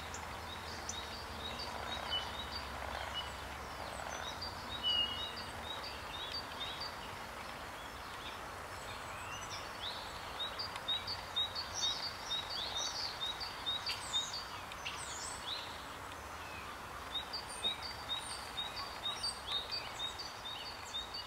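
Songbirds singing outdoors: runs of short, high chirps repeated a few times a second, over a steady hiss of outdoor background noise.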